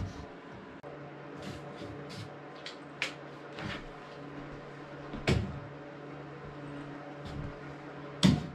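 A few sharp wooden knocks and clunks as quick-grip bar clamps are handled against a plywood box, the loudest near the end. A steady low hum runs underneath.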